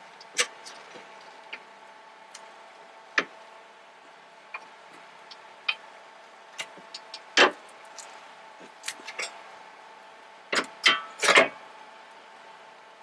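Scattered clicks and metal-on-metal knocks from tools and a loose suspension part being handled, loudest in a cluster of knocks near the end, over a faint steady hum.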